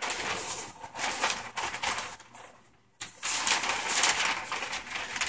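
Brown kraft wrapping paper rustling and crinkling as it is unrolled and peeled back from a rolled poster print, in uneven bursts; it dies away just before three seconds in, then starts again suddenly and louder.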